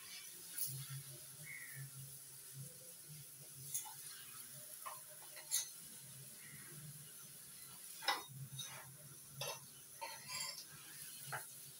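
Scattered clinks and knocks of a metal utensil against a griddle while a paratha cooks, the sharpest about eight seconds in, over a low steady hum and faint hiss.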